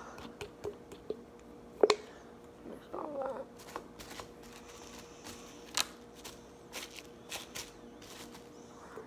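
Scattered small clicks and taps of hands handling a plastic glue bottle and its cap, with a sharper click about two seconds in and a short squeak around three seconds, over a faint steady hum.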